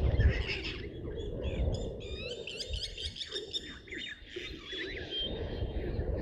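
Wild birds singing at a waterhole, a dense run of quick rising and falling chirps through the middle. A low rumble sits underneath, loudest at the start.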